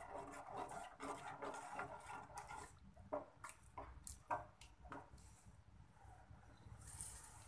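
Faint sound of a metal ladle stirring and scraping through blended dried-chilli paste in an aluminium pot, with several light clinks of the ladle against the pot about three to four and a half seconds in.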